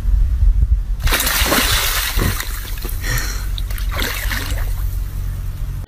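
Water splashing and sloshing, over a steady low rumble, with the splashing getting fuller from about a second in.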